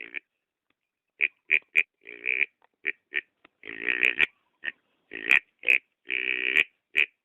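Wild boar grunting: an irregular run of short grunts with a few longer, drawn-out calls, after a pause of about a second at the start.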